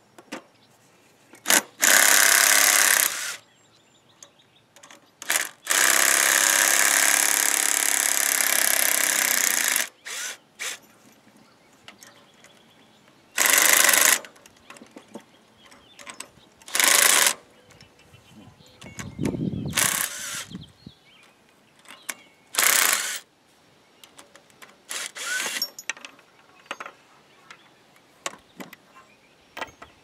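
Impact wrench run in about seven short bursts, the longest about four seconds, loosening the fasteners of a temporary repair on a truck's front winch cable.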